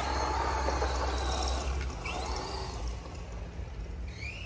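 Losi 8ight X Super Lasernut 1/6-scale electric RC buggy driving: a steady rush of tyres and drivetrain, with the brushless motor's whine rising briefly about two seconds in and again near the end.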